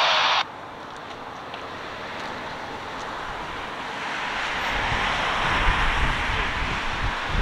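Distant CFM56 jet engines of a taxiing Boeing 737-800: a steady rushing that grows gradually louder, with gusts of wind rumbling on the microphone from a little past halfway.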